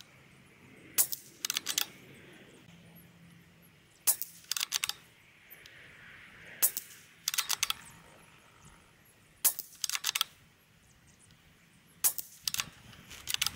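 Five shots from a shortened-barrel Anschütz .22 LR rifle, one about every two and a half to three seconds. Each is a sharp crack followed about half a second later by a quick run of clicks as the action is worked for the next round.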